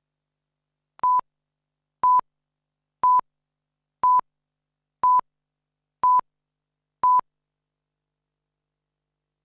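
Countdown-clock beeps on a broadcast tape leader: seven short beeps of one steady pitch, one each second, then they stop.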